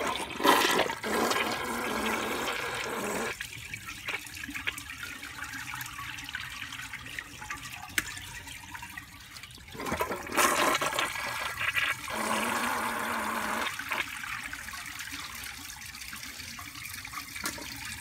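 1991 Briggs Conserver toilet, set to 1.5 gallons per flush, flushing twice about ten seconds apart. Each flush is a loud rush of water into the bowl, which settles into quieter steady running water. A rag is lodged in the trapway, so the bowl is not draining.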